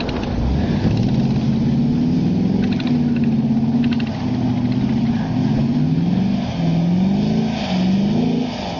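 Audi S4's 4.2-litre V8 engine revving as the car drifts across slushy snow on grass. The engine pitch rises and falls several times in the second half, with a few faint ticks a few seconds in.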